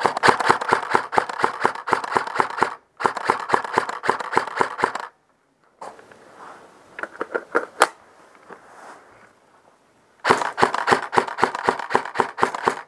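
Airsoft rifle firing on full auto in three long bursts, a rapid, even clatter of shots. In the pause between the second and third bursts there is quieter rustling with a few scattered clicks.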